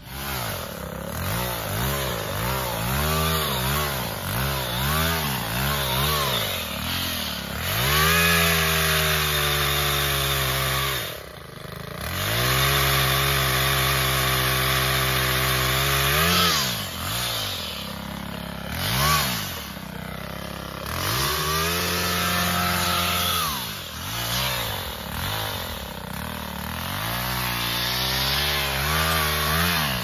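Chainsaw's small engine revving up and down over and over while cutting brush. It holds steady at full speed for a few seconds twice, around a quarter and a half of the way through, with a brief drop in between.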